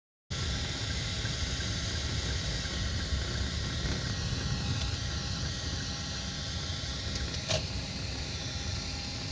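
Car engine and road noise heard from inside the cabin while driving, a steady low rumble. A brief click about seven and a half seconds in.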